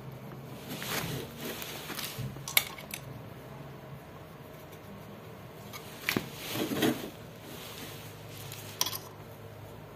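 Small metal screws clinking and knocking as they are handled against a washing machine motor's steel housing: a few separate taps and rattles, the sharpest about two and a half seconds in.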